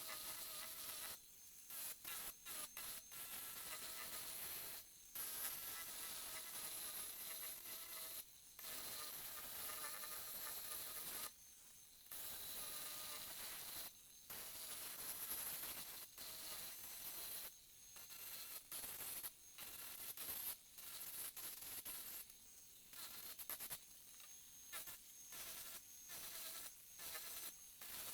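Merlin2 miniature angle grinder running at high speed against wood, a high-pitched whine broken again and again by short gaps.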